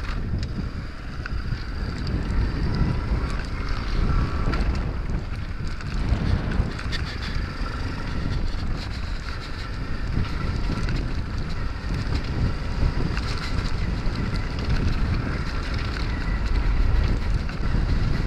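Nitro Sky 125cc pit bike's single-cylinder four-stroke engine running at a steady riding speed, heavily buffeted by wind on the helmet camera's microphone.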